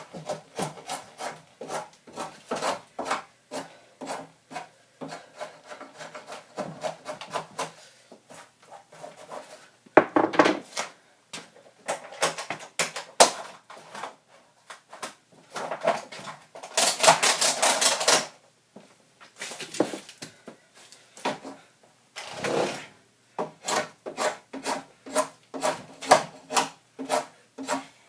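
Wood shaved by hand at the end of a log to form a tenon: quick, repeated scraping strokes of a tool on the wood, a few a second. There are short pauses and several louder, faster runs.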